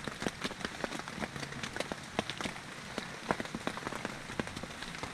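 Rain falling on the fabric of an Ayamaya pop-up tent, heard from inside: many separate drop ticks over a steady hiss.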